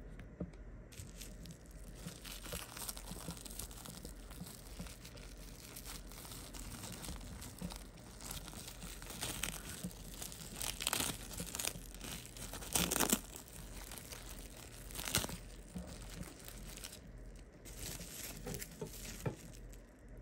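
Wrapping crinkling and rustling as it is handled, with several louder crinkles past the middle.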